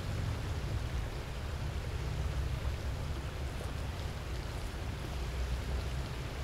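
Wind rumbling on the microphone over the steady rush of a shallow river.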